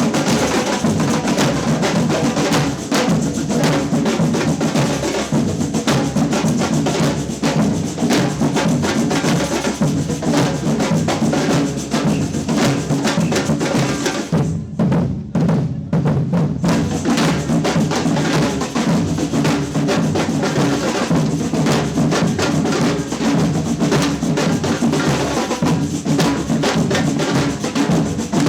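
Samba percussion band (batucada) playing a funk-style groove on drums, with a deep bass drum under the snares and other hand percussion. About halfway through, the high, sharp percussion cuts out for about two seconds, leaving the low drums, and then the full band comes back in.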